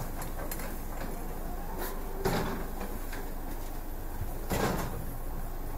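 Steady low hum inside the passenger car of an ED4M electric train, with two soft thumps about two and four and a half seconds in.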